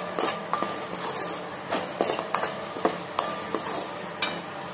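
A metal spoon scraping and knocking against a metal kadai while stirring a thick onion-tomato masala. The clicks come every few tenths of a second, some ringing briefly, as the masala is sautéed until its raw smell is gone.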